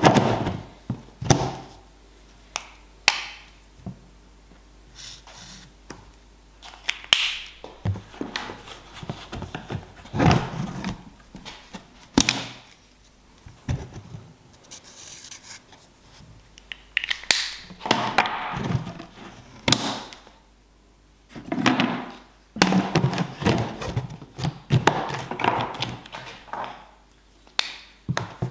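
Irregular knocks and thunks of a plastic bucket lid being pressed shut and a small oak block being handled and set down on it, with stretches of scratching from a permanent marker writing on the wood.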